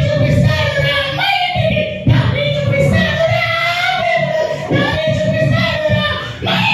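A high-pitched voice singing a song with held, sliding notes over a musical accompaniment with a steady beat.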